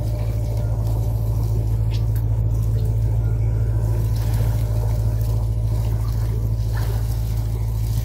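A small engine running steadily, a low drone that holds an even pitch and level throughout.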